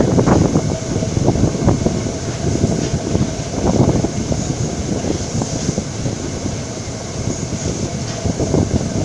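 Steam-hauled train running along the track, heard from an open carriage window: steady rolling rumble of the wheels on the rails with irregular clatter, and air rushing past.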